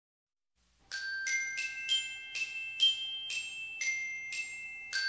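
Outro jingle of bright, bell-like mallet notes in the manner of a glockenspiel. They come in about a second in and are struck one after another, roughly two to three a second, each ringing out before the next.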